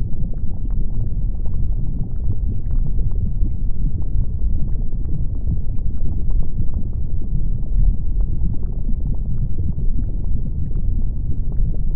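Erupting volcano: a deep, steady rumble with small crackles and pops scattered through it.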